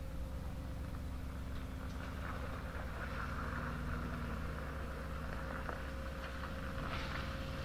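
Mercedes-Benz G500 4x4²'s twin-turbo V8 running steadily at low revs as the truck crawls forward. Its tyres crunch over gravel from about two seconds in.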